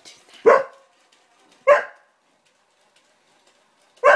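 Border collie barking three short, sharp barks, spaced a second or more apart.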